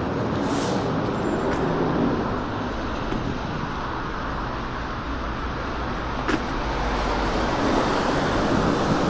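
Steady city road traffic noise, with cars and buses passing. A few short sharp clicks, the loudest about six seconds in.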